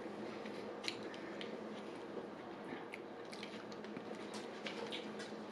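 Close-up mouth sounds of biting into and chewing a soft sub roll: soft, scattered wet clicks and squishes over a faint steady low hum.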